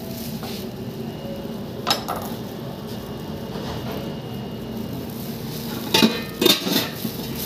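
Kitchenware clattering: a sharp knock about two seconds in, then three quick knocks and clinks around six seconds in, over a steady background hum.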